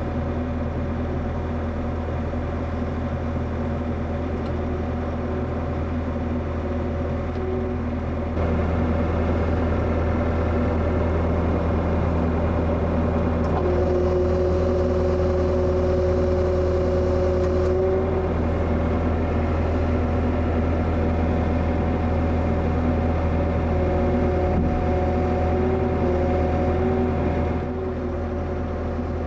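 Bobcat E55 mini excavator's diesel engine running with its hydraulics working, a steady low drone with whining tones over it. The engine note rises about eight seconds in and drops back near the end, with the whine strongest for a few seconds in the middle.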